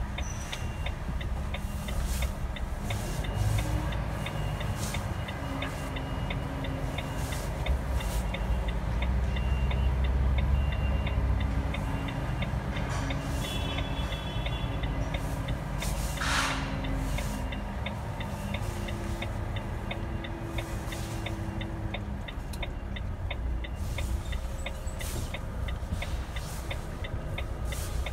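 Inside a lorry cab on the move: steady diesel engine and road rumble with a fine, regular ticking over it.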